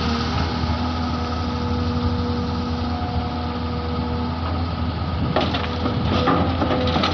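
Excavator's diesel engine running steadily under load with a steady whine. From about five seconds in, a run of cracks and knocks comes in, like earth and stones being worked or dropped during loading.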